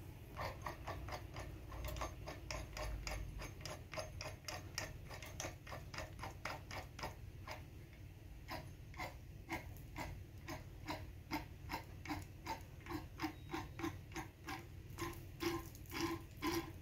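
Steady mechanical clicking, about four sharp clicks a second, with a short break about eight seconds in and louder clicks near the end.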